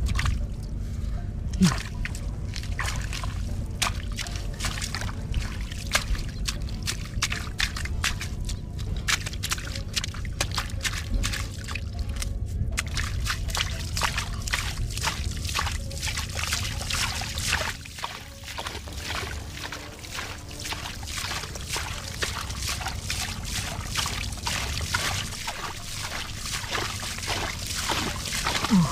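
Muddy water sloshing and splashing as hands scoop and dig in a shallow mud hole: a long run of short wet slaps and splashes over a steady low rumble.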